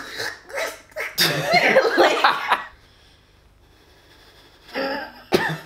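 Exaggerated mock sobbing: loud, gasping, choking vocal bursts for about two and a half seconds, a pause, then one more short burst near the end.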